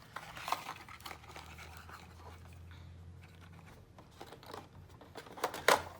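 Small packaged hardware being handled: plastic bags and parts rustling and crinkling with scattered clicks. There is a faint low hum for the first half or so, and one sharp, louder click near the end.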